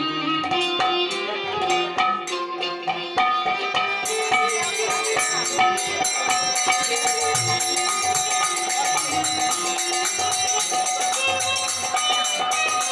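Kirtan music: a khol barrel drum played with hand strokes under a melody of long held notes. About four seconds in, a continuous metallic jingle joins, like small hand cymbals.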